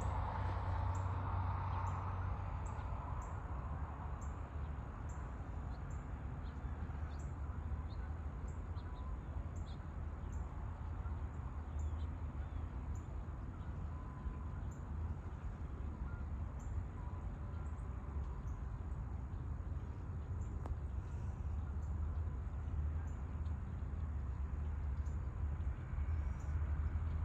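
Early-morning rural ambience: a steady low rumble, with a short, high, thin chirp repeated about once or twice a second throughout.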